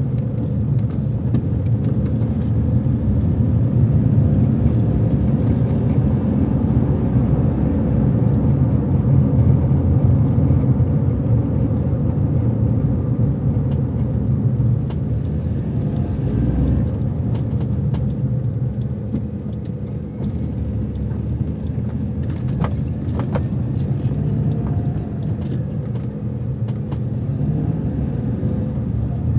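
Car driving on the road: a steady low rumble of engine and tyres, with a few faint ticks or rattles around the middle.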